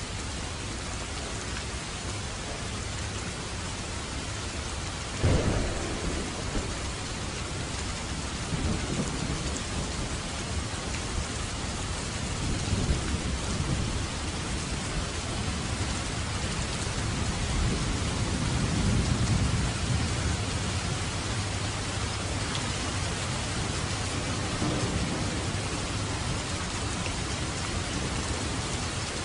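Steady heavy rain falling, with a sudden thunderclap about five seconds in that rolls on as a low rumble, swelling and fading over the next fifteen seconds or so.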